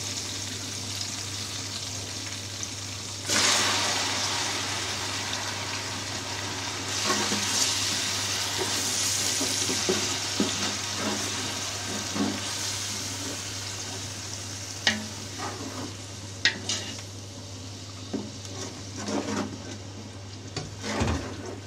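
Browned onions frying and sizzling in oil in a large metal pot, with sudden louder surges of sizzling about three and seven seconds in as chopped tomatoes, ginger and green chilli go in. A wooden spoon stirs the mixture and knocks against the pot several times near the end.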